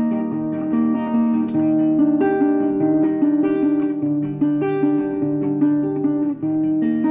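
Background music: acoustic guitar, plucked notes and strummed chords at a steady pace.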